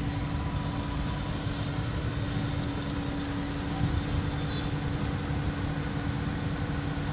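Diesel engine of a truck-mounted crane running steadily: a low rumble with a constant hum.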